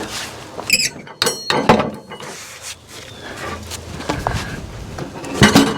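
Freshly sawn red oak boards being handled: a few sharp wooden clunks and knocks with scraping between them. The sawmill's cutting has stopped.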